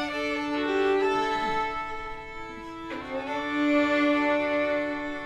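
Three fiddles playing together in harmony on long held notes: the closing chords of an old-time fiddle tune, with a final chord coming in about three seconds in and held.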